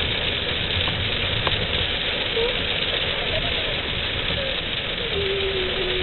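Heavy rain pelting the roof and windshield of a car, heard from inside the cabin as a loud, steady, dense hiss.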